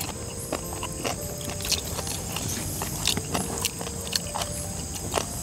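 People eating with their hands: scattered small clicks and smacks of chewing and fingers working food off a banana leaf, over a steady high-pitched chorus of night insects.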